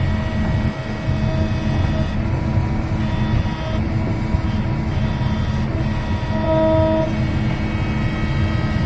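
Heavy diesel machinery running steadily, typical of a Komatsu PC200 excavator's engine and hydraulics: a deep rumble with a steady whine over it. The whine swells briefly about six and a half seconds in.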